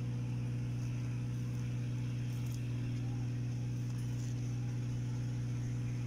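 A steady low mechanical hum, like a motor running at constant speed, unchanging throughout.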